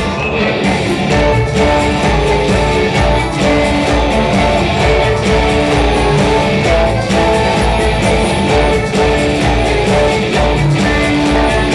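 Live rock band playing an instrumental passage: electric guitar strumming over a steady drum beat, loud and continuous.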